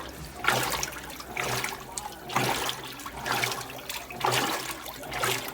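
Electrolux LT12F top-loading washing machine agitating: water sloshing in surges about once a second, each stroke with a low motor hum under it.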